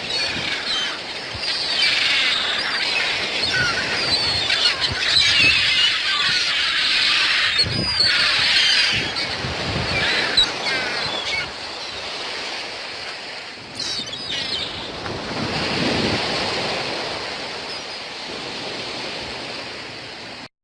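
Many birds chirping in a busy chorus of short, quick calls, over a steady rushing background noise.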